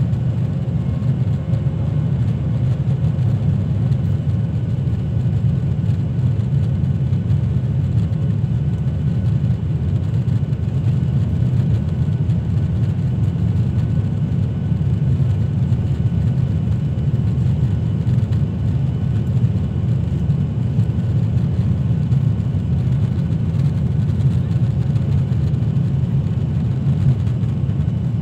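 Steady low rumble of a Boeing 737-800's CFM56-7B engines and the airflow over the fuselage, heard inside the cabin over the wing during the climb after takeoff.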